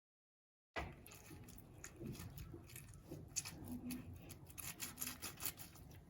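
Wire whisk being twisted inside a halved orange to squeeze out its juice: wet squishing with many small irregular clicks. It starts abruptly under a second in.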